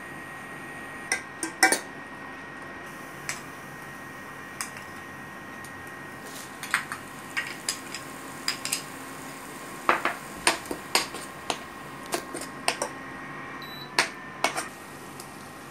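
A steel spatula clinking and scraping against a stainless steel pot as tomato paste is stirred into cooking onion paste. A few scattered knocks in the first seconds, then frequent sharp metallic clinks from about six seconds in.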